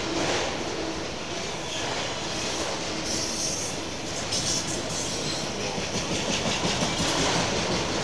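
Freight train of autorack cars rolling past close by: a steady, continuous rumble and clatter of steel wheels on the rails.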